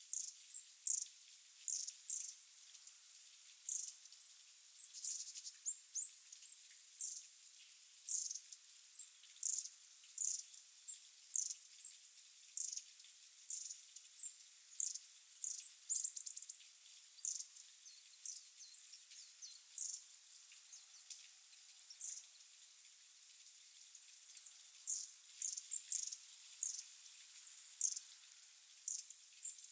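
Wild birds giving short, high, thin calls, many of them quick downward sweeps, repeated one or two a second with a few quick clusters.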